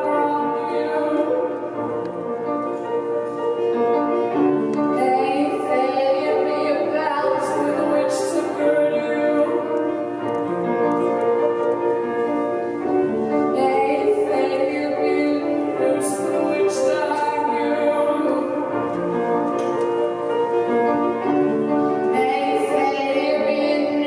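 A woman singing slow, held notes with piano accompaniment in a live performance.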